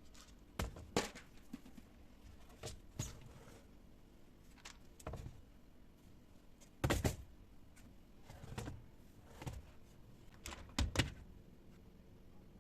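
Irregular light knocks and clacks of household objects being handled and set down, about a dozen in all, the loudest about seven seconds in and again near eleven seconds.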